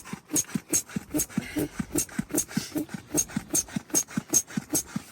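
Built-in hand-pressed pump of a self-inflating air mattress being pumped quickly, about five strokes a second, each press pushing out a short puff of air with a low squeaky note and a click.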